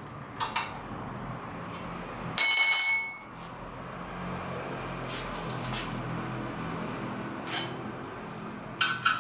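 Metal parts clinking and knocking, with one loud bell-like metallic ring about two and a half seconds in that dies away within about half a second. A few more sharp clicks follow near the end.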